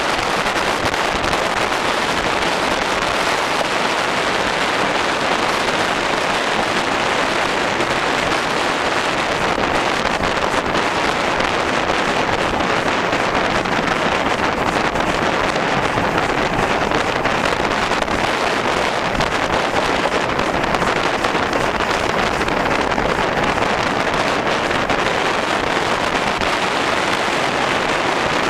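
Steady rush of wind buffeting the microphone from the cab of a moving Ivatt steam locomotive, with the locomotive's running noise blended into it.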